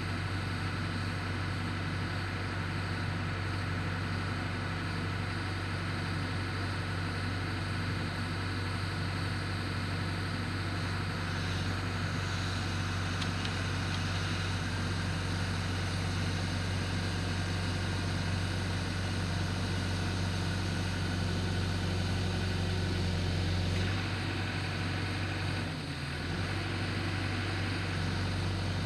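Engine running steadily at a constant speed, with a brief shift in its note and a dip in level about three quarters of the way through before it settles back.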